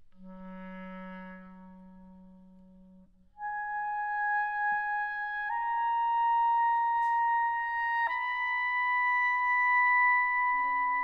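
Solo clarinet in concert: a soft low note held for about three seconds, then after a short break loud, long high notes that climb in three steps. A lower note comes in near the end.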